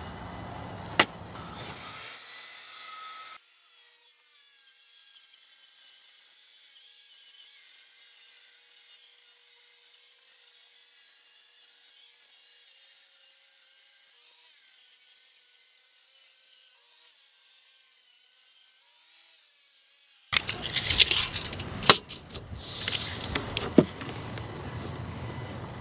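Corded circular saw ripping a sheet of 3/4-inch plywood lengthwise: a steady high whine that dips slightly in pitch now and then as the blade works through the cut. About twenty seconds in it stops, giving way to handling noise with sharp clicks and knocks.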